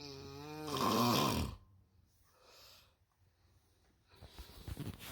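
A person snoring. A wavering snore swells into a loud rasp about a second in, a faint breath follows, and a rattling snore comes near the end.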